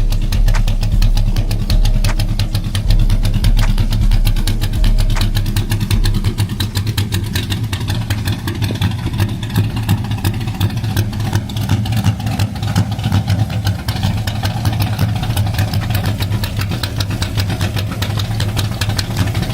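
Corvette engine running at idle with a steady rapid pulse and a deeper rumble for the first six seconds or so that then eases. It has an odd note that the owner calls weird and a little funky, cause unknown to him.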